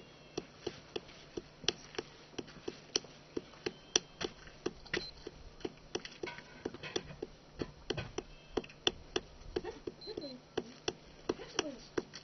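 Light rapid taps, about three a second, of a potter's hand patting and pressing wet clay onto the top of an upturned mould while shaping a small pot.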